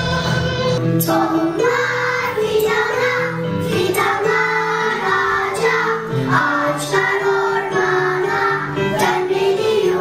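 A children's song: a group of children singing a melody together over backing music, the voices coming in about a second and a half in.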